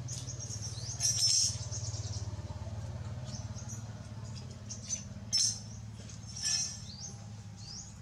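Baby monkey giving short, high-pitched squeaks and chirps, some rising in pitch, loudest about a second in and again around five and six and a half seconds. A steady low hum runs underneath.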